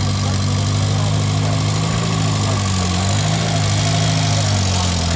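A car engine idling steadily close by, its pitch dipping slightly about three seconds in.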